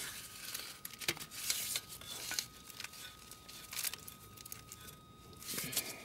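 Gloved hand handling a wiring harness, its plastic loom rustling and crinkling in irregular bursts, with a few sharp clicks.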